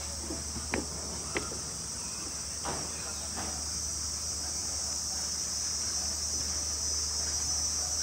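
Rainforest insect chorus: a dense, steady, high-pitched drone from many insects. A few brief clicks and knocks stand out in the first few seconds, over a low steady hum.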